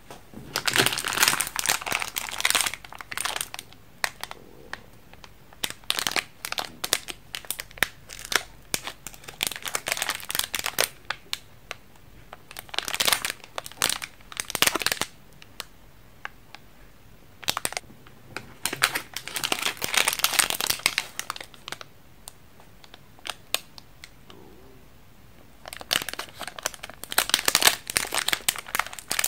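Plastic candy wrappers crinkling as the wrapped candy sticks are handled and pulled taut, in several bursts of a few seconds with scattered single crackles between.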